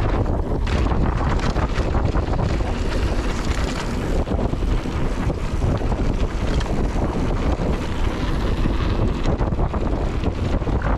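Wind buffeting a GoPro action camera's microphone as a mountain bike rolls down a dirt trail, with steady tyre noise and frequent small knocks and rattles from the bike over rough ground.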